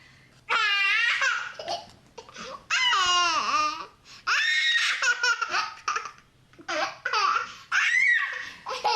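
An 18-month-old toddler boy laughing loudly in repeated high-pitched bouts of squealing laughter, each sliding down in pitch, with brief breaths between.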